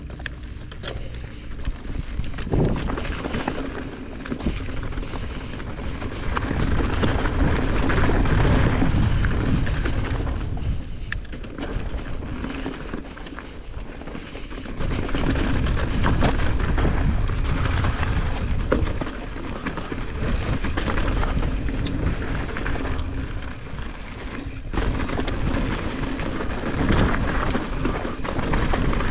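Mountain bike rolling downhill over loose rocky gravel: tyres crunching and the bike clattering over stones, with wind rushing and buffeting on the camera microphone. The noise swells and eases several times.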